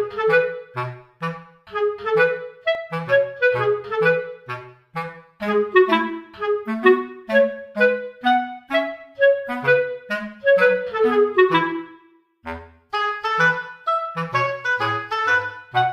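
Background music: a quick, bouncy melody of short notes over short bass notes, with a brief break about twelve seconds in.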